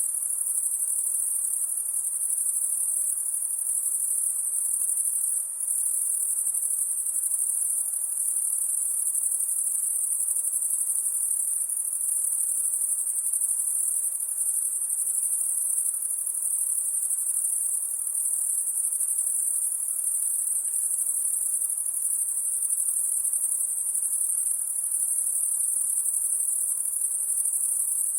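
High-pitched insect chorus at night: a continuous, steady shrill trill.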